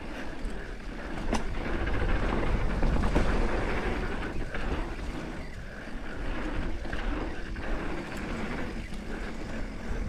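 Mountain bike riding down a dirt trail: wind buffeting the microphone over the rolling rumble of the tyres, with scattered light rattles and knocks from the bike over bumps.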